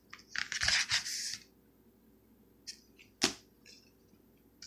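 Rigid plastic card holders being handled off a stack: a scraping slide in the first second and a half, then a single sharp click about three seconds in, with a few light ticks around it.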